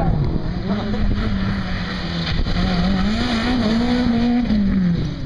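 Peugeot 206 race car's engine revving hard as it drives a loose dirt track, its pitch climbing and wavering through the middle and dropping as it lifts off just before the end.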